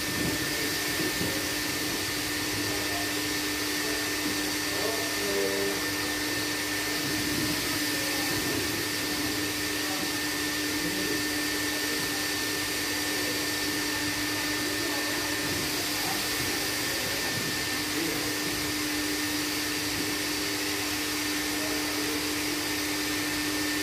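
Disinfectant vapour booth's misting machine running continuously: a steady blowing hiss with a low hum and a higher whine held throughout.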